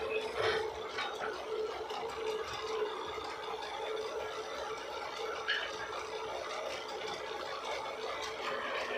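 Small wood-turning lathe running with a steady hum, with a few knocks and clicks as a wooden trowel handle is lifted off and fitted back on.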